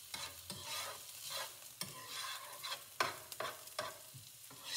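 Sliced onions sizzling in oil in a nonstick frying pan on medium heat while a utensil stirs them, with irregular scrapes and taps of the utensil against the pan.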